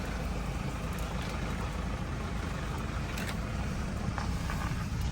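A car running, a steady low rumble with no break.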